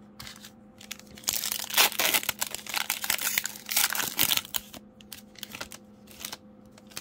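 A Panini Donruss basketball card pack's shiny plastic wrapper being torn open and crinkled in the hands. It is loudest from about one to four and a half seconds in, then lighter crinkling as the cards are taken out.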